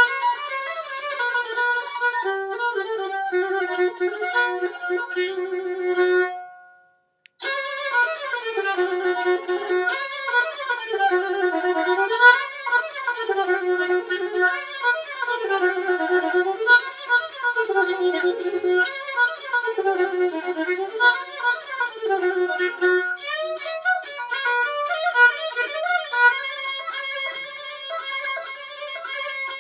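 Pontic lyra (kemenche) played solo with a bow: a melody that breaks off briefly about six seconds in, then goes on in a run of repeated rising-and-falling phrases.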